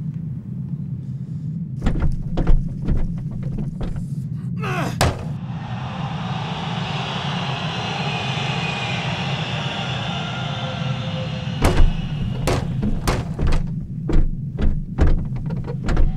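Sharp knocks and thuds, bunched about two seconds in and again in the last few seconds, over a steady low hum; a hissing swell fills the middle stretch.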